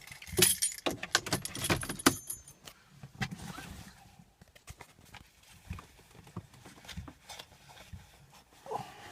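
Handling noises in a parked car's cabin: a quick run of sharp clicks and rattles in the first two seconds, then scattered fainter clicks and taps.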